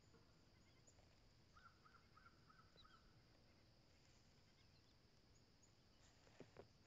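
Near silence: faint outdoor lakeside ambience with distant bird calls, including a quick run of five short chirps. Two soft knocks come near the end.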